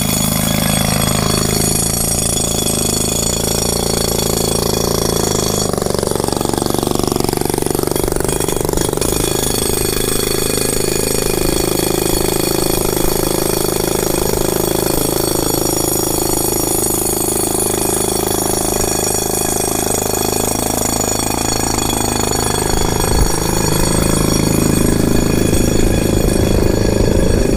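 Rock drill hammering steadily as it bores holes into stone for steel rebar anchors.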